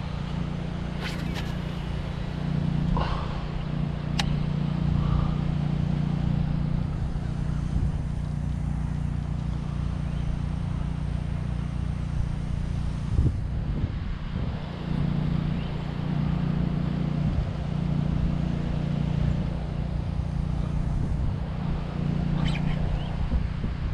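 Wind buffeting the camera microphone, heard as a steady low rumbling hum with a few light clicks and taps.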